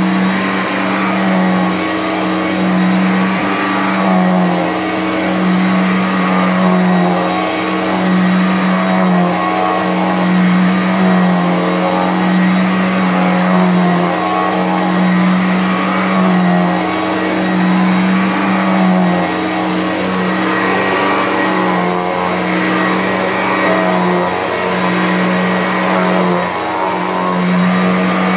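1986 Electrolux Discovery 2 two-motor upright vacuum running on carpet: the suction motor and the power-head motor driving the brush roll make a loud, steady hum. The hum wavers slightly in pitch every second or two.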